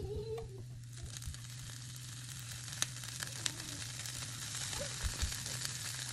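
Garlic sizzling in hot olive oil in a cast iron skillet as handfuls of chopped kale are dropped in. The sizzle thickens after about a second, with a few sharp crackles.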